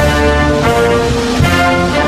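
A national anthem played by an orchestra led by brass, in slow held chords that change about every half second.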